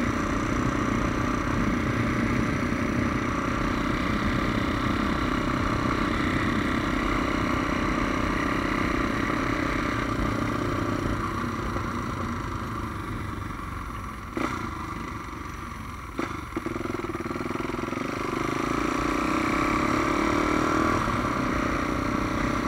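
Single-cylinder engine of a Honda Tornado motorcycle, bored out to 350cc, running steadily while it is ridden. About halfway through it eases off and goes quieter, with two short knocks, then picks up again.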